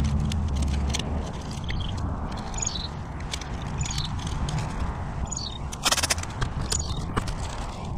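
Masking tape being worked onto a motorcycle wheel, with soft handling scrapes and one short, loud rip about six seconds in as tape is pulled off the roll. A bird calls several times in the background.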